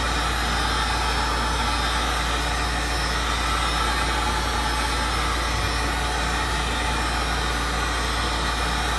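Handheld electric heat gun running steadily, blowing hot air over wet epoxy resin to pop surface bubbles and thin the pour.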